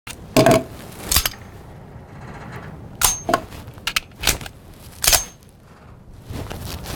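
A firearm being handled: about eight sharp metallic clicks and clacks at uneven intervals, a few with a brief ring.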